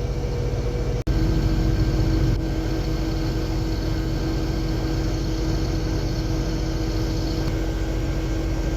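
Case IH Axial-Flow combine running with a steady drone and a constant whine. The sound cuts out for an instant about a second in, then carries on slightly louder with a lower whine.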